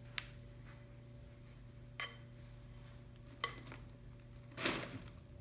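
Plastic spatula clinking and scraping against a glass mixing bowl as food is scraped out into a trash can: a few sharp clinks spread through, then a louder scrape near the end.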